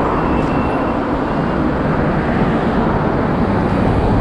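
Steady, loud rush of street traffic noise, even throughout with no distinct events.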